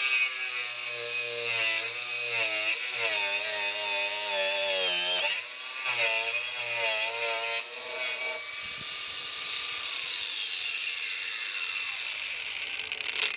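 Bosch GWS 180-Li cordless angle grinder working under load, its motor pitch wavering as the disc bites, with a brief break about five seconds in. About eight seconds in it runs free at a steady pitch, then winds down in a falling whine as the trigger is released.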